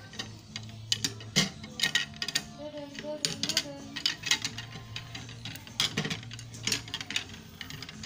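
Parcel packaging being handled and opened: irregular clicks and crinkles, a few of them sharper and louder.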